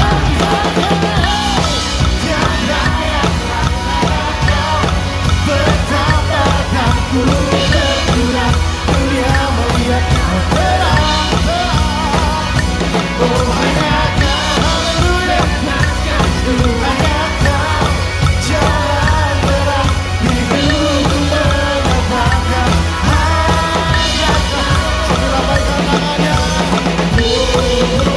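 A live worship band playing at 148 beats a minute, with the drum kit close and prominent: bass drum and snare driving the beat under the melody.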